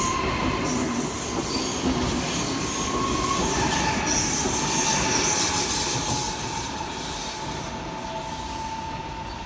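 Siemens Velaro RUS Sapsan high-speed electric train, two sets coupled, pulling out and rolling past at low speed. There is a steady rumble and hiss of wheels on rail, with a high tone that steps down a little in pitch about three seconds in and a brief higher squeal around four to five seconds. It grows slightly quieter over the last few seconds as the train draws away.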